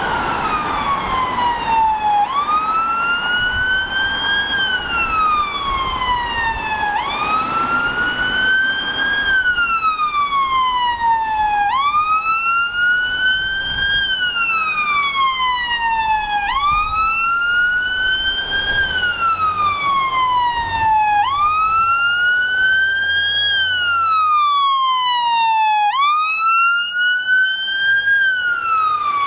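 Fire engine siren on its wail setting, sweeping slowly up and down about every four and a half seconds as the appliance comes through traffic. Low road traffic noise runs underneath.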